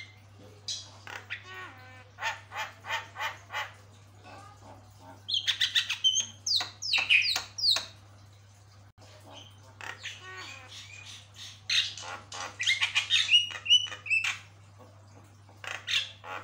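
Caged Javan myna singing a loud, varied run of harsh squawks, rapid chattering notes and whistled glides, in phrases with short pauses between. A steady low hum lies underneath.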